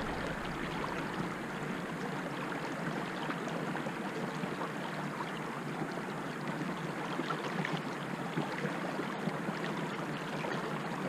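Steady wash of river water along the side of a small inflatable boat under way, with a faint steady hum in the first few seconds.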